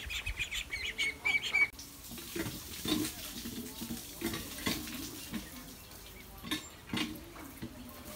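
Pigeons pecking grain off a concrete yard: scattered light taps and clicks, with a few short low calls among them. For about the first second and a half a fast run of short, high chirping calls plays, then breaks off abruptly.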